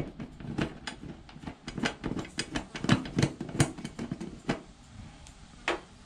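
Irregular clicks and taps of the plastic access cover on a Whirlpool electric water heater being screwed back into place by hand. They come thick for the first few seconds, then thin out, with one sharper click near the end.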